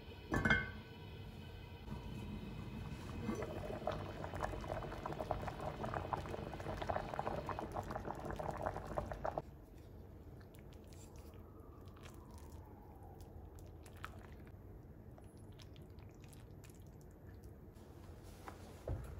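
A knock, then about seven seconds of pouring, bubbling liquid noise full of small crackles, which stops suddenly. After it only faint small clicks remain.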